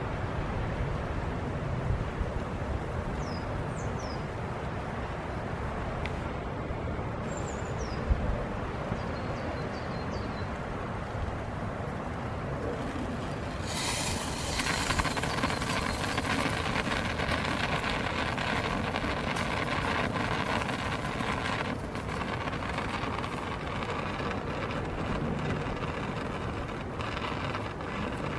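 Steam hissing out of the pressure-release vent in a titanium pot lid as the rice pot comes to the boil, starting suddenly about halfway through and easing a little after several seconds. Under it a steady low rumble of wind, and a few faint high chirps in the first part.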